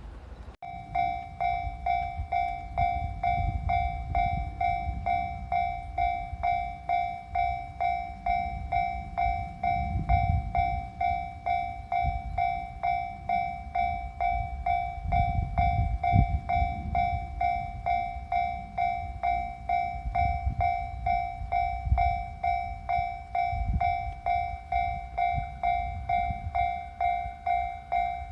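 Japanese railway level-crossing warning bell starting up and ringing in a steady, even rhythm of electronic two-tone dings, a little under two a second, with a low rumble underneath.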